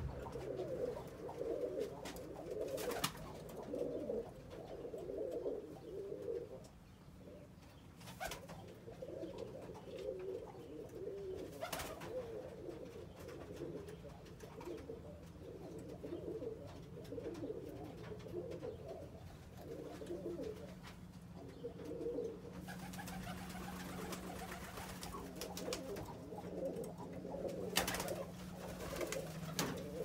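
Domestic pigeons cooing in repeated low warbling phrases, with a few sharp clicks among them.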